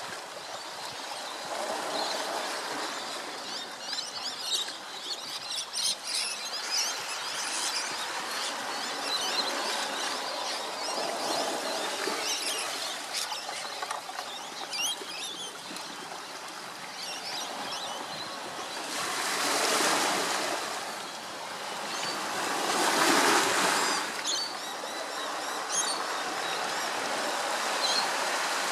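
Steady wash of surf, swelling louder twice in the second half, with faint scattered chirps of small birds.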